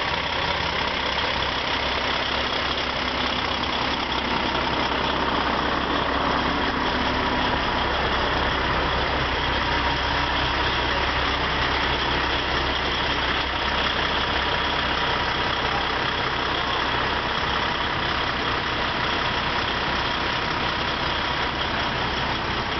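Heavy truck diesel engines idling, a steady unbroken running hum.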